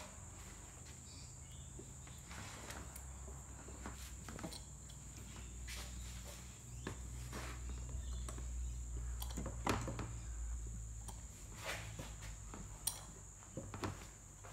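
Hands turning the T-handle screw of a homemade cylinder puller on a seized Yamaha RZ350 cylinder: scattered light metal clicks and knocks, the sharpest about ten seconds in and again near the end. Under them run a steady low hum and a faint high whine.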